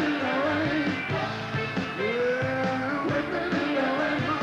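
A live rock band playing: electric guitar, bass and drums, with a man singing the lead.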